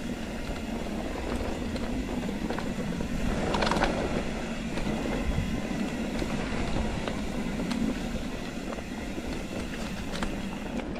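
Mountain bike riding along a single-track trail: steady tyre and trail noise with many small rattles and knocks from the bike, and a louder clatter a little over a third of the way in.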